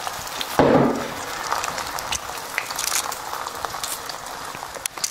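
Beaten eggs sizzling in a hot oiled frying pan as the omelette sets: a steady hiss dotted with small crackles. A short, louder low sound breaks in about half a second in.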